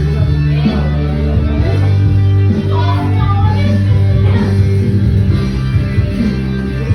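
Music with guitar: a song's instrumental part with a steady bass line and plucked guitar notes.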